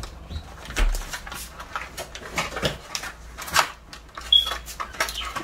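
Clear plastic toy packaging being handled, crinkling and rustling in irregular crackles with a few light knocks of small parts.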